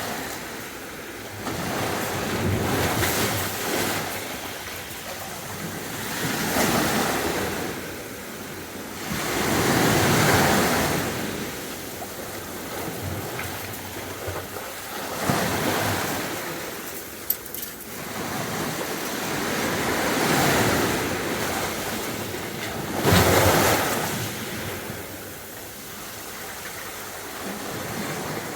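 Sea waves breaking on the beach and washing back, the surf swelling and fading every few seconds.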